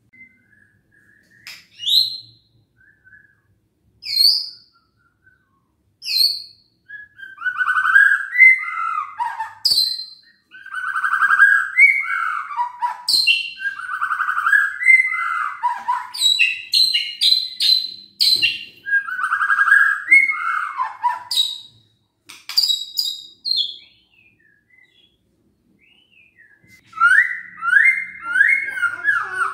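White-rumped shama (murai batu) singing in a cage. A few separate sharp calls come in the first six seconds, then a long run of varied rising and falling phrases. The song breaks off a little past the middle and starts up again near the end.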